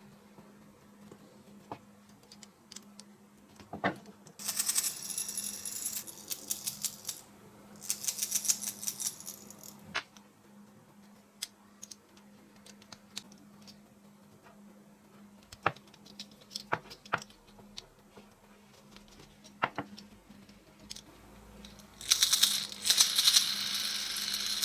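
Small hard objects rattling in three bursts of rapid clicking, with single clicks and taps in between, over a faint low steady hum.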